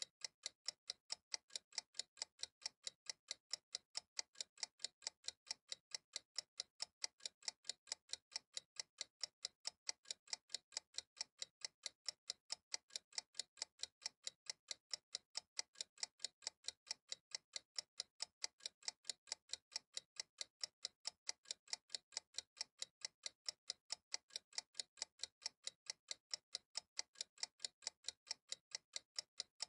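Steady, even ticking, about four ticks a second.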